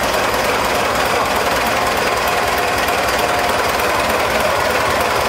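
Canal barge's inboard engine running, heard close up in the engine room, with a loud, steady, rapid clatter.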